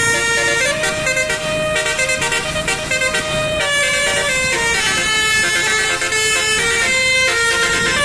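Basuri 'telolet' musical bus horn playing a tune: several held notes sound together and step up and down in pitch without a break.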